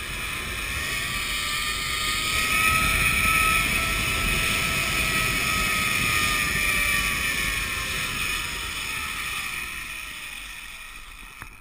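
Zipline trolley pulleys whirring along the steel cable, with wind rushing past. The whine rises slightly in pitch, then slowly falls and fades as the ride slows on the approach to the landing platform.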